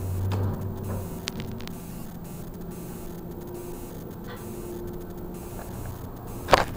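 Hole-less hydraulic elevator car travelling between floors, a steady low hum from the hydraulic drive. A short sharp knock comes about six and a half seconds in.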